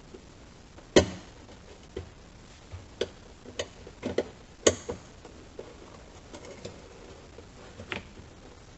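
Hand tools and parts clicking and knocking at uneven intervals as the hatch receiver unit is screwed back into place, with a sharp knock about a second in as the loudest.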